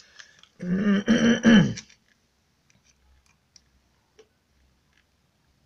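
A man's short wordless vocal sound, about a second long with a falling end, followed by a few faint clicks as multimeter probes touch the terminals of a dishwasher circulation pump.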